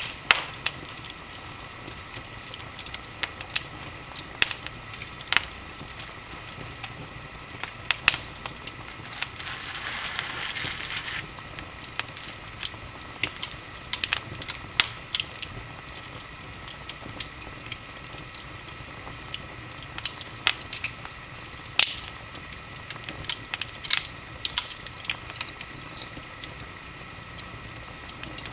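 Large open wood fire in a fireplace crackling, with sharp, irregular pops over a steady hiss. About ten seconds in, a louder hissing rush lasts a second or two.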